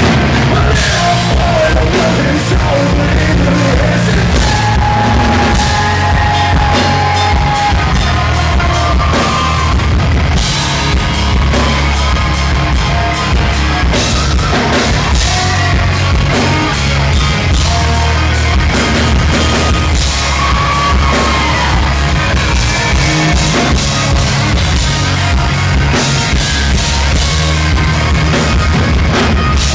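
A live rock band playing, with a male lead singer over electric guitar and a drum kit, heard from among the audience at a steady, loud level.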